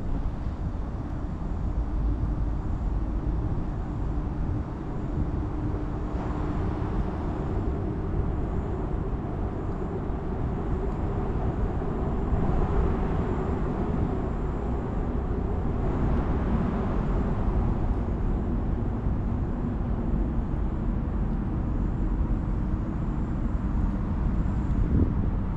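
Steady low rumble of distant city road traffic, swelling and easing a few times.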